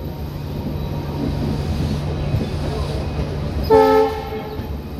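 Diesel-hauled passenger train, led by a WDP-4 locomotive, rolling slowly with a steady low rumble. About four seconds in comes one short horn blast lasting a little under a second.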